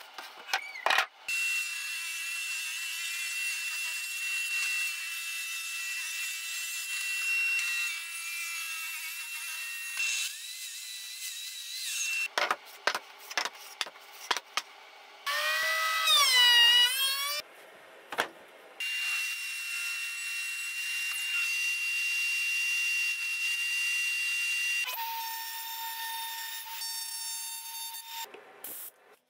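Power saws cutting wood in a series of short clips: a steady motor whine held for several seconds at a time, with a run of clicks and knocks partway through and a stretch where the pitch wavers.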